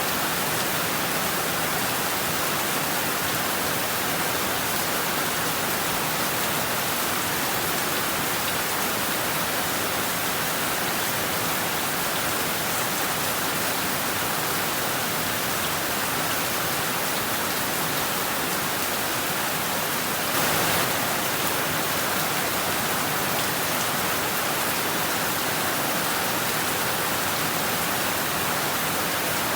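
Heavy rain falling steadily on roofs and trees: a dense, even hiss of rain with no let-up, briefly swelling a little about two-thirds of the way through.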